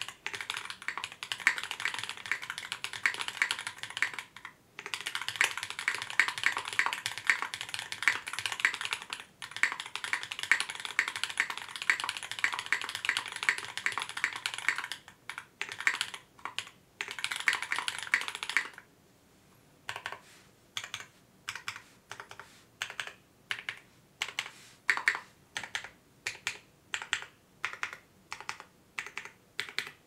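Fjell mechanical keyboard with lubed Holy Panda tactile switches on a brass plate, GMK keycaps and a foam liner, being typed on fast and continuously, with two brief pauses. About nineteen seconds in, the typing gives way to single, separate keystrokes about two a second.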